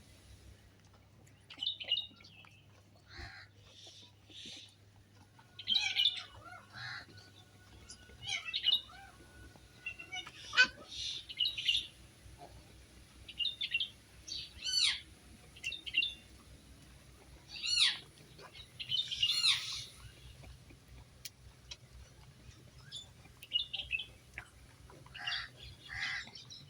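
Birds chirping on and off, short high calls every second or two, some with quick swooping pitch changes, over a faint low steady hum.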